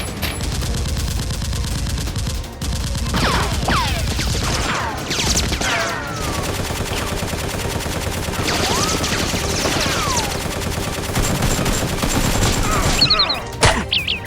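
Sustained bursts of rapid automatic gunfire, shot after shot in a dense run, with falling whistling sounds over it about a third and two-thirds of the way in.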